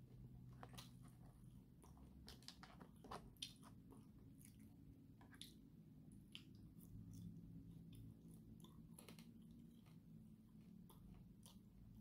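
Faint chewing of food, with scattered small clicks from the mouth and the metal chopsticks, over a low steady room hum.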